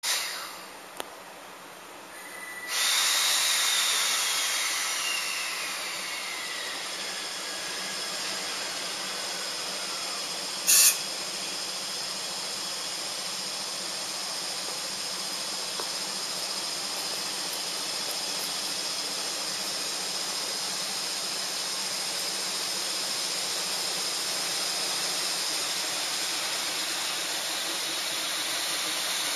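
JR Freight EF65 DC electric locomotive hauling a container freight train rolling slowly past the platform, with a steady hiss that starts suddenly about three seconds in. One short loud blast comes about eleven seconds in.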